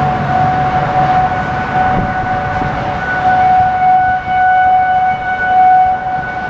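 Civil defense sirens holding a steady Alert tone: one unchanging pitch with overtones, swelling and fading in loudness.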